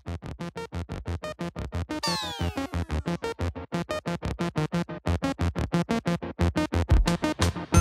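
Electronic background music with a rapid, even pulsing beat, about six pulses a second, and a run of falling synth sweeps about two seconds in.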